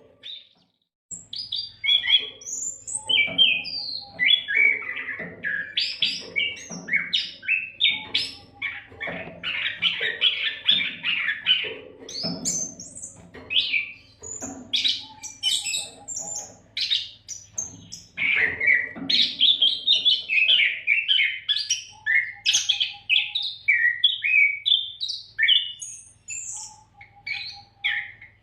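Oriental magpie-robin (kacer) singing a fast, varied song of whistles, trills and chirps almost without pause, after a brief silence at the start. A faint steady low hum runs underneath.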